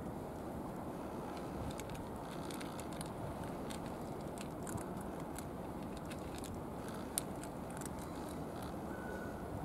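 A calico cat eating from a bowl: faint, sharp, irregular clicks of chewing and crunching food over a steady background rush.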